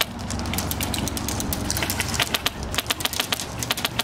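Airsoft guns firing: many sharp clicks and pops in quick, irregular strings, thickest in the second half, over a steady low hum.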